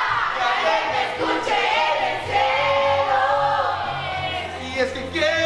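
A song playing, with several voices singing a melody over a steady bass.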